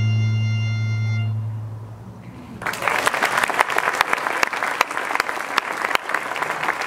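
A bluegrass string band's final chord with bowed fiddle, held and fading out over the first two seconds. About two and a half seconds in, audience applause starts and continues.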